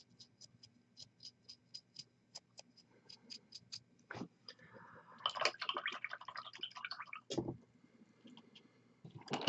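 Small handling sounds on a miniature-painting desk: a quick run of light ticks, about five a second, for the first few seconds, then a knock, a scratchy rustle lasting about two seconds, and two more knocks, the last one sharper near the end.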